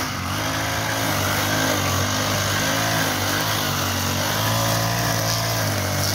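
Small petrol engine of a wheeled string trimmer running steadily while it cuts grass. Its pitch wavers a little as the load changes.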